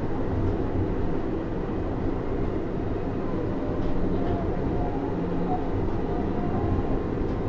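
Interior running sound of a Disney Resort Line Series 10 (Type-X) straddle-beam monorail car with Hitachi IGBT-VVVF traction: a steady low rumble, with faint steady tones coming and going.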